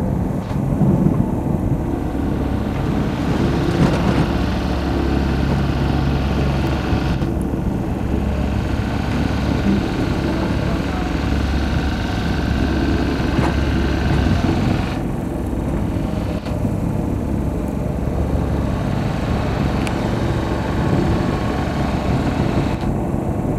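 Cat 330F hydraulic excavator's diesel engine running steadily under load while digging and swinging, its sound swelling and easing with the work. A thin whine holds for several seconds near the middle.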